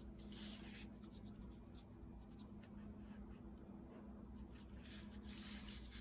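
Faint scratchy rustle of a watercolor paintbrush stroking across paper, in short irregular strokes.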